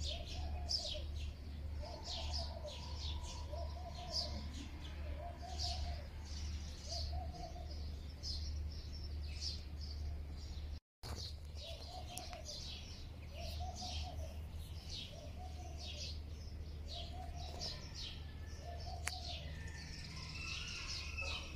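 Small birds chirping and twittering throughout, with a short, lower call repeating about every second and a half. The sound drops out for a moment about halfway.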